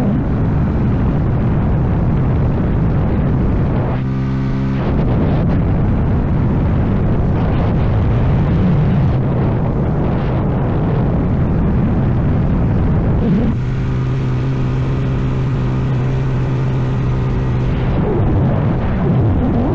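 CFMoto Papio's small single-cylinder engine running under way, its pitch rising and falling with the throttle and held steady for a few seconds about four seconds in and again for most of the last third, under heavy wind and road noise.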